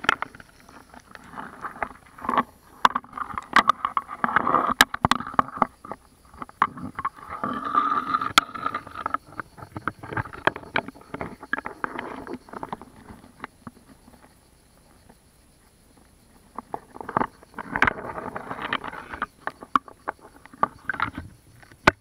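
Stream water sloshing and gurgling around a camera held half-submerged at the surface of a shallow stony stream, in irregular surges with many sharp clicks and knocks. It goes quieter for a couple of seconds past the middle, then picks up again.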